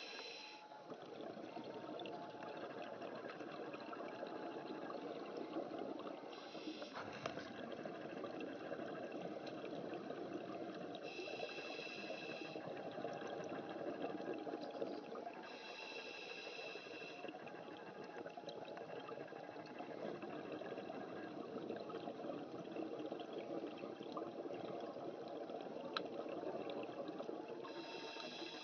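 Underwater sound of a scuba diver's regulator and exhaled bubbles: a steady bubbling rumble, with a short higher hiss every few seconds as breath is drawn through the regulator.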